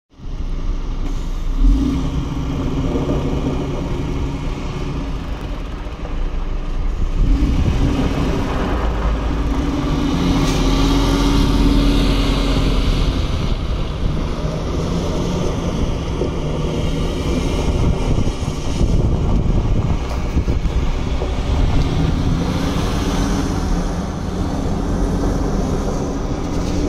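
Diesel engine of a 2013 MAN 18.460 tractor unit pulling away, rising and falling in pitch as the truck drives off, turns and comes back. Its tyres crunch over loose gravel, loudest about ten seconds in.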